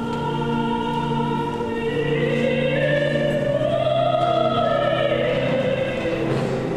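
Slow classical singing with long held notes over steady sustained chords; the melody climbs to its highest, loudest note about four seconds in.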